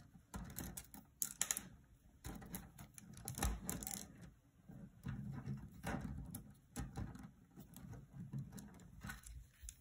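Plastic pony beads on a beaded kandi cuff clicking and clattering against each other as the cuff is handled and its fishing line is pulled tight. The clicks come irregularly, in small clusters, and are faint.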